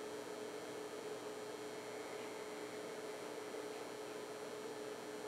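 Room tone: a steady electrical hum over a soft hiss, unchanging throughout.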